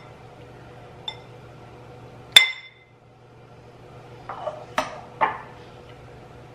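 Metal serving spoon clinking against a ceramic casserole dish as cooked macaroni is spooned in: a faint clink about a second in, a sharp ringing clink about two seconds in, then a few softer clinks and scrapes near the middle.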